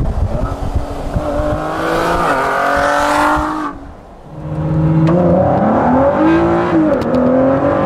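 Ford GT's twin-turbo EcoBoost V6 accelerating, its pitch climbing and then dropping back with each upshift. For the first few seconds it is heard from an adjacent car with a rush of wind over it. After a sudden cut about four seconds in, it is heard from inside the cabin.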